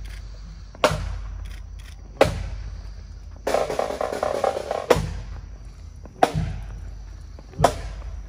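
Marching pipe band drums beating a slow cadence: single heavy drum strokes about every second and a half, five in all, each ringing out before the next. A snare drum roll fills the gap between the second and third strokes.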